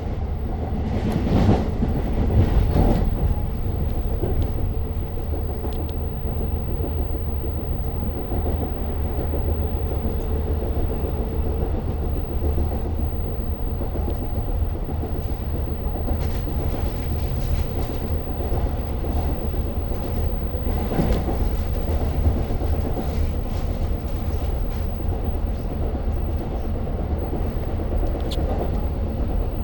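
Long Island Rail Road diesel push-pull train running between stations, heard from inside a passenger coach: a steady low rumble of wheels on rail with occasional clacks and knocks.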